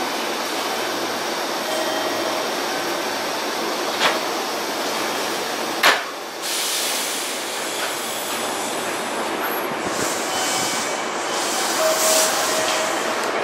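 Hanshin Mukogawa Line commuter train standing at a platform with its equipment running, giving a steady hum and hiss. There is a light knock about four seconds in and a sharper one near six seconds, followed by bursts of high hissing.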